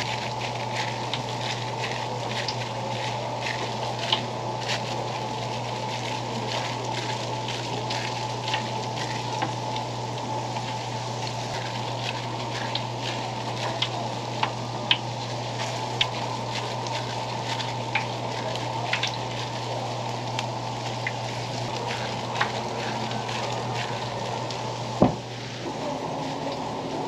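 Hot oil sizzling as fish cakes deep-fry, with many scattered sharp pops over a steady low hum. A single sharp knock near the end.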